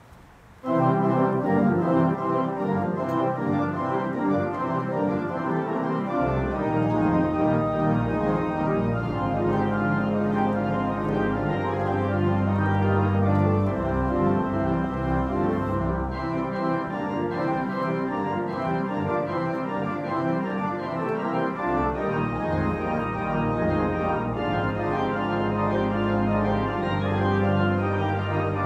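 Pipe organ playing a postlude to close the service, in full chords that start suddenly about a second in. Sustained low pedal notes join about six seconds in.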